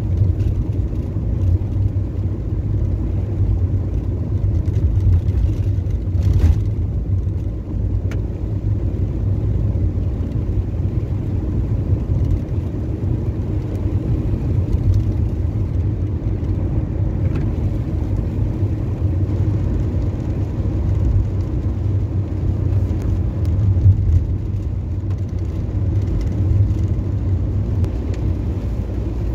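A car driving on a wet road, heard from inside the cabin: a steady low rumble of engine and tyres.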